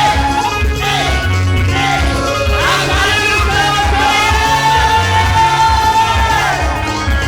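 Live praise and worship music: a singer holds one long high note over a band with a steady, pulsing bass beat.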